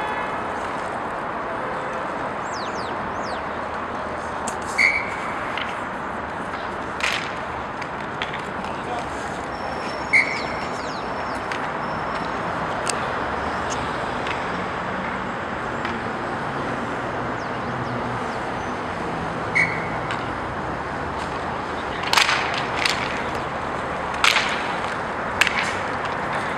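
Inline roller hockey play on a rink: a steady din of skate wheels rolling and players moving, broken by scattered sharp clacks of sticks and puck. The clacks come thicker near the end.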